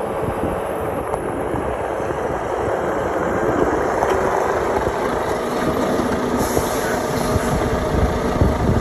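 Volvo semi-truck with a box trailer driving slowly past close by across a gravel yard: diesel engine running and tyres crunching on gravel, growing louder as the cab draws level a few seconds in.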